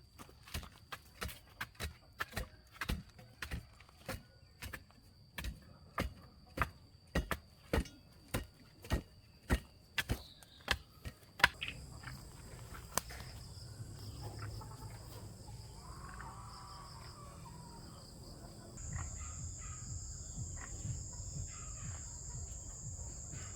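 A quick, steady run of sharp strikes, like a hand tool hitting wood, over a steady high insect drone; after about eleven seconds the strikes stop and only the insect buzzing and a low rumble continue.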